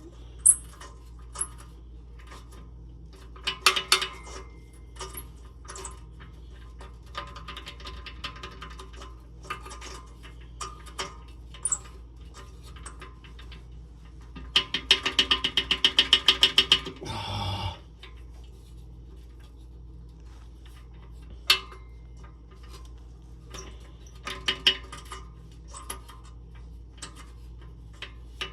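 Hand tools working on a car's exhaust bolts: scattered metallic clinks and taps, and about halfway through a fast run of ratchet wrench clicks lasting a couple of seconds, followed by a brief scrape.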